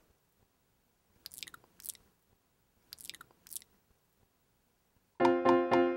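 Crunchy chewing in two short bouts of a few bites each, separated by silence. Piano music starts near the end.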